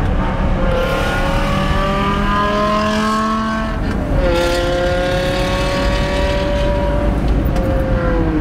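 BMW M5 E60's V10 with an Eisenmann exhaust accelerating hard. Its pitch climbs slowly and drops at an upshift about four seconds in, climbs again and drops at another shift near the end, heard over road noise from inside a car running alongside.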